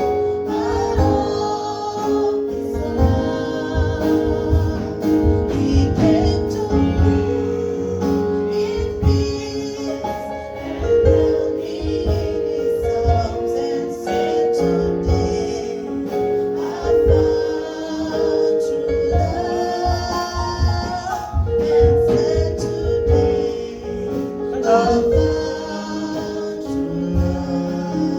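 Gospel music: voices singing held melodic lines over instruments with a steady beat.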